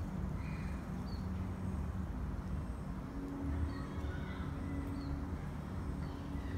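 Outdoor background: a steady low rumble of distant traffic, with a few faint, short high chirps.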